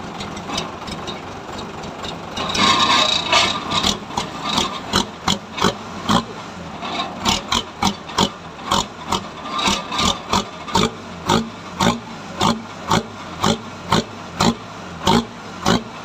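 Dump truck's diesel engine running through a rebuilt used muffler and tailpipe. It gets louder about two and a half seconds in, then pulses in a steady rhythm about twice a second: the growling 'ngorok' exhaust note the rebuild is meant to give.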